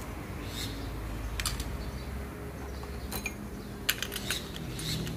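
Light metal clicks and clinks from an automatic transmission's steel 3-4 clutch drum and its parts being handled. They come irregularly, with a quick cluster about four seconds in.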